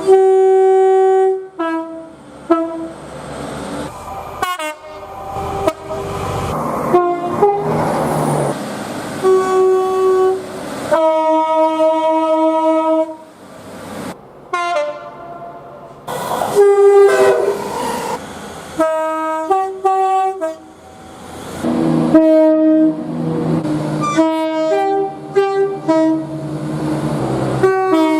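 Train horns sounding a string of blasts, short and long, from one clip to the next with abrupt changes every few seconds; several sound two or more notes at once as a chord. Train running noise rumbles between the blasts.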